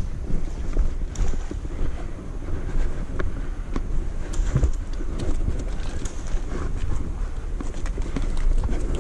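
Low rumbling movement and handling noise with scattered sharp clicks and knocks, as of a player moving about during an airsoft game.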